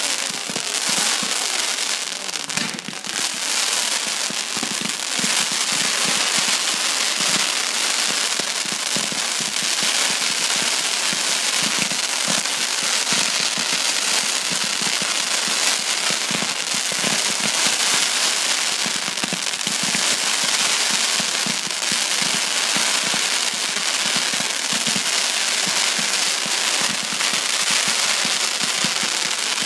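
A ground firework throwing up streams of sparks: a steady, dense hiss packed with fast crackles and small pops, with no big single bang.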